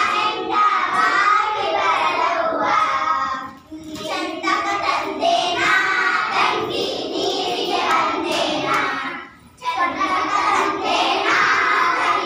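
A group of children singing a song together in sung phrases, pausing briefly twice.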